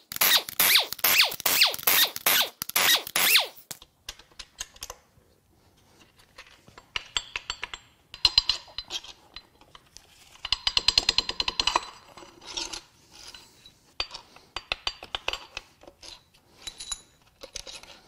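Air impact wrench hammering out the main bearing cap bolts of a Chevrolet Cruze 2.0L turbo diesel block in several short goes over the first four seconds. Later come metal clinks and rattles as the loosened bolts and main caps are lifted off and handled, busiest a few seconds past the middle.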